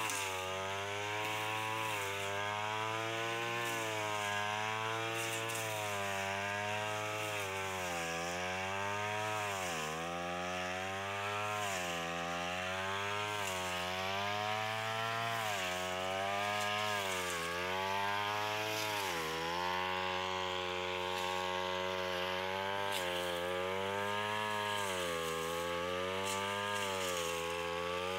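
Backpack brush cutter's small petrol engine running at high speed while cutting grass and weeds, its pitch dipping and climbing back every few seconds as it works.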